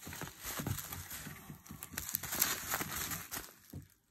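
Plastic packaging rustling and crinkling as items are handled and unwrapped, with irregular small crackles and taps, dying away near the end.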